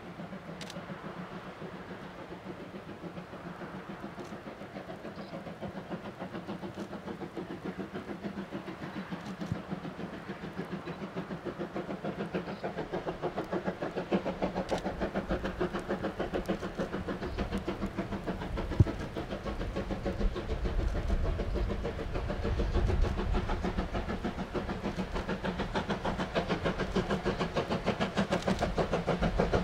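Steam locomotive C12 66, a 2-6-2 tank engine, working hard up a grade under full power, its exhaust chuffing in rapid, even beats that grow steadily louder as it approaches. One sharp click comes about two-thirds of the way through.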